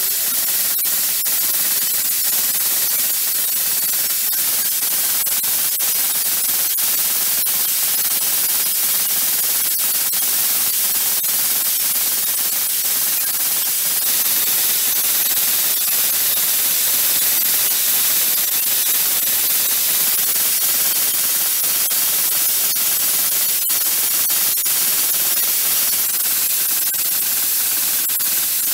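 Steady high hiss from a running automatic screw-inspection machine, with faint irregular clicks throughout.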